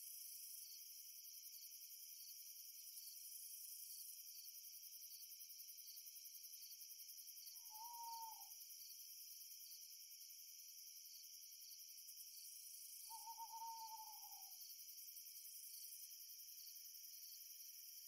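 Faint, steady high-pitched chorus of crickets, with an owl hooting twice: a short hoot near the middle and a longer, slightly falling hoot a few seconds later.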